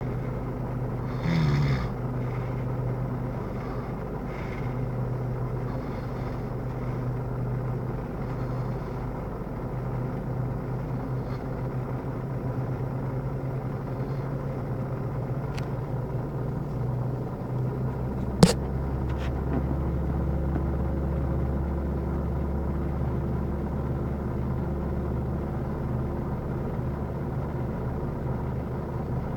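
A person snoring, heard as a steady low drone that deepens about seventeen seconds in, with a single sharp click a second later.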